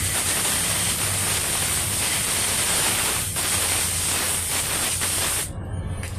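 A loud, steady hiss that cuts off suddenly about five and a half seconds in.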